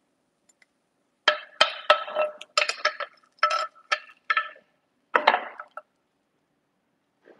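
A quick run of about a dozen hard clinks, as of dishes or utensils knocking together. Each clink rings briefly at the same few pitches. They start about a second in and stop near six seconds.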